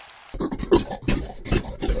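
An animal making a quick, irregular run of short, rough sounds, two or three a second, cutting in abruptly about a third of a second in after a steady rain-like hiss.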